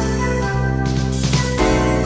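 Background music: sustained chords over a steady bass line, with light high percussive hits.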